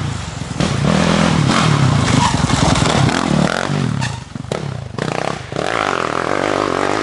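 A big 450 dirt bike's engine revving hard as it rides past, the throttle rising and falling, with brief let-offs about four and five seconds in.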